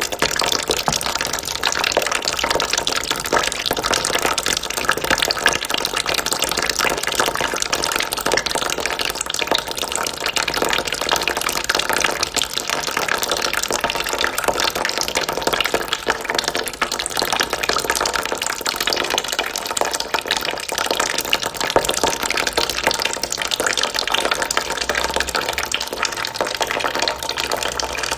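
A steady stream of water trickling into a bucket of water, running without a break.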